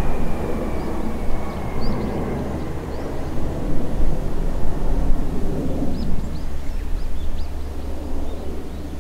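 Boeing 747-400's four Pratt & Whitney PW4056 turbofans rumbling as the airliner flies away on approach, fading slowly. A thin engine whine falls gently in pitch and dies out in the first couple of seconds.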